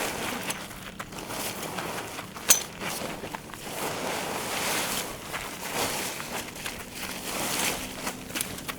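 A folding camp frame being handled as its legs are pulled out: rustling and scattered clicks, with one sharp snap about two and a half seconds in.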